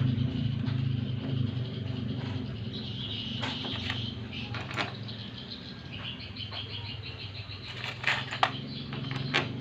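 A steady low hum with a few sharp clicks, the loudest pair about eight seconds in, and high chirping in the background.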